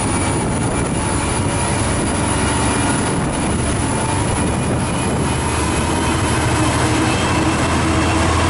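Diesel engine of a V/Line N class locomotive (an EMD 12-cylinder two-stroke) running as it hauls a passenger train slowly along the platform. It makes a steady low drone that grows a little louder near the end as the locomotive draws close.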